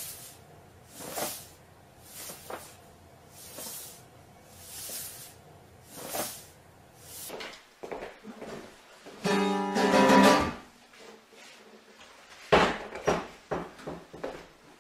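Acoustic guitar sounding a loud chord about nine seconds in, ringing for about a second, followed a couple of seconds later by a run of sharp knocks and thumps. Before that, a soft noise repeats about once a second.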